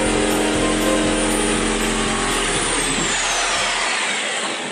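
Reciprocating saw running, cutting through the fiberglass tub wall. About three seconds in, the motor is let off and winds down with a falling whine.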